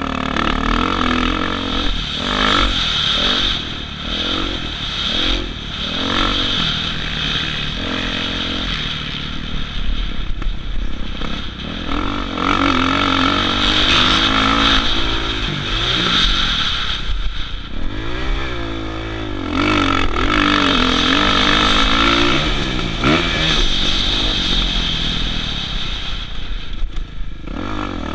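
Kawasaki KX450 motocross bike's single-cylinder four-stroke engine revving hard, its pitch rising and falling again and again as the rider opens and closes the throttle through the turns and jumps.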